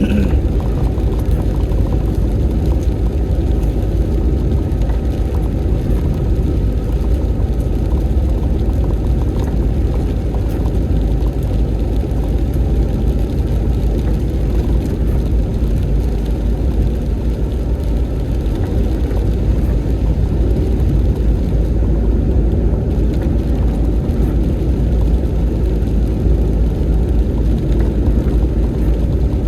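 Steady low road rumble of a car being driven: engine and tyre noise at a constant pace, without sudden changes.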